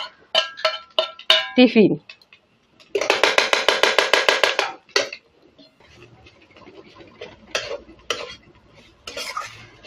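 A metal spoon clinking and scraping against a wok while stirring ground soybean filling. The loudest part is one long grating scrape of about a second and a half, with a rapid even pulse, followed by a few faint taps.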